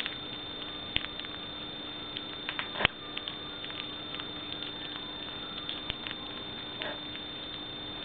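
Monk parakeet nibbling a piece of butternut squash: irregular small beak clicks and crunches, with a sharper click about a second in and a louder one near three seconds. A steady background hum runs underneath.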